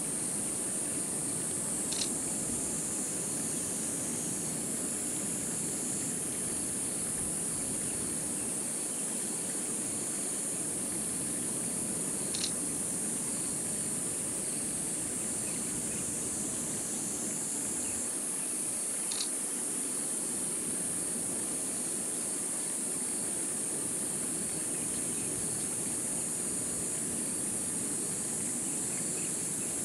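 Insects singing in a steady, unbroken high-pitched chorus over a soft outdoor background hiss, with three faint ticks along the way.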